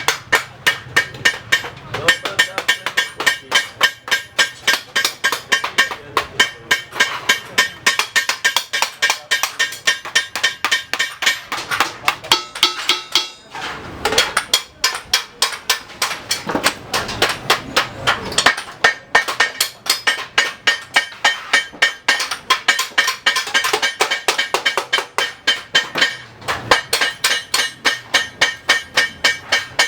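Hammer striking metal again and again, about three or four ringing blows a second, with a short break about halfway through.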